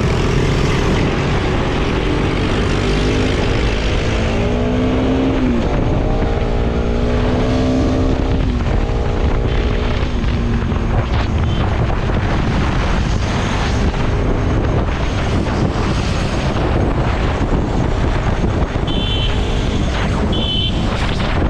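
Motorcycle being ridden at speed, with heavy wind rumble on the action-camera microphone. An engine note rises and holds for several seconds in the first half. Two short high beeps come near the end.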